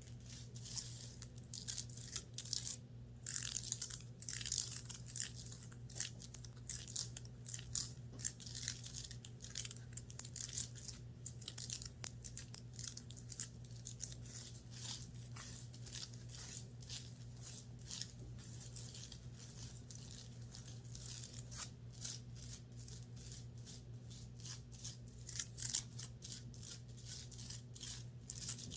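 Rapid, irregular scratching and rubbing on the fabric of a clothing top, over a steady low hum.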